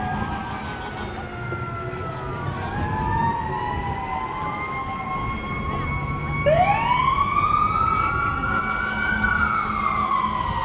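Several emergency-vehicle sirens wailing at once, a fire truck's among them, their pitches gliding up and down and crossing. A louder siren starts about six and a half seconds in, sweeps up, then falls away near the end.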